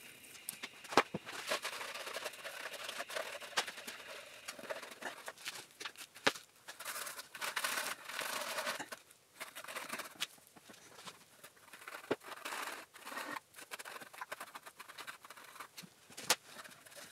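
Rag scrubbing and wiping the intake port face of an engine's cylinder head by hand: an irregular rubbing and scratching in uneven strokes, with a few sharp clicks.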